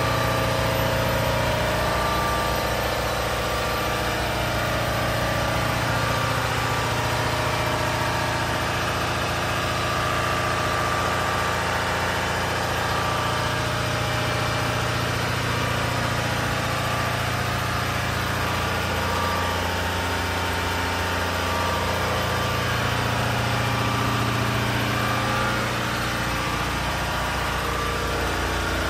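Engine-driven compressor package running steadily, a constant mechanical hum with a low engine drone.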